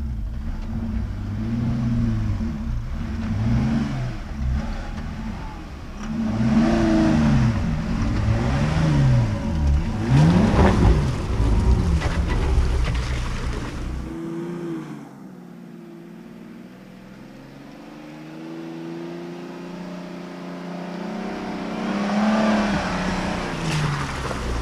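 Jeep Cherokee Trailhawk engines revving up and down in repeated swells as the SUVs climb a rutted dirt hill, loudest as one passes close about halfway through. Then the sound drops to a quieter, slowly rising engine note that grows louder again near the end as the next Jeep comes up.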